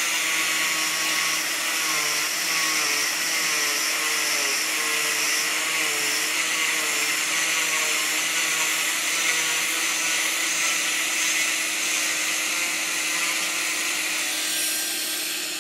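Oscillating cast saw running against a fiberglass cast, a steady motor whine over a hiss, its pitch wavering as the blade bears on the cast.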